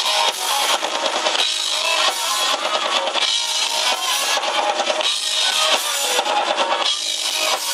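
Live rock band playing an instrumental passage, with guitar and drum kit, thin in the bass.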